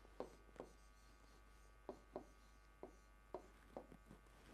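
Faint taps and short strokes of a pen writing handwritten Japanese characters on a board, about seven separate marks spaced irregularly.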